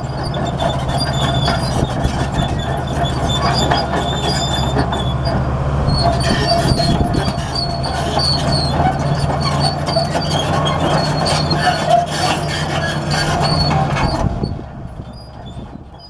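Komatsu D65P crawler bulldozer's diesel engine running steadily under load as it pushes dirt, with the steel tracks squealing and clanking. The sound fades out over the last second and a half.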